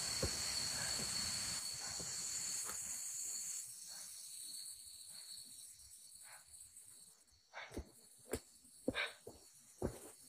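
Steady chirring of night insects over a faint hiss, dying away after about four seconds. Then footsteps on leaf-littered, rooty ground, a step roughly every half second, starting about seven and a half seconds in.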